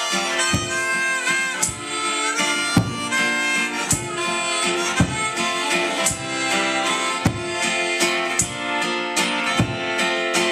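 Instrumental break in a live song: a held, slightly bending lead melody over steady chords, with a strong beat about once a second.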